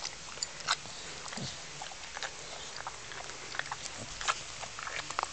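Dog chewing and smacking its mouth: irregular soft clicks, with one short low sound about one and a half seconds in.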